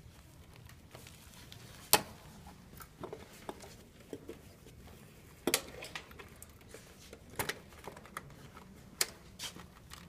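Scattered sharp clicks and light rattles of wire leads being worked off the terminals of an air-conditioner condenser's contactor, the loudest click about two seconds in.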